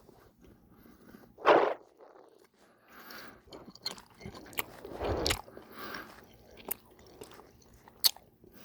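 Close-miked biting and chewing of a Twizzler licorice twist: one loud bite about a second and a half in, then irregular chewing with sharp wet mouth clicks.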